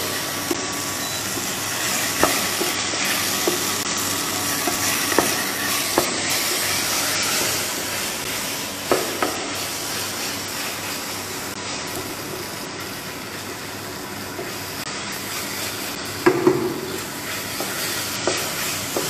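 Onions, bell peppers and tomato paste sizzling in a pan as they are stirred, with the utensil knocking against the pan a few times, most strongly near the end. The tomato paste is being cooked out on dry heat until its raw taste goes.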